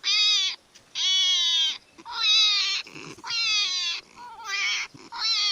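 Hedgehog screaming in distress while under attack: a run of about six high-pitched cries, each under a second long and sliding slightly down in pitch, that sound like a human baby crying.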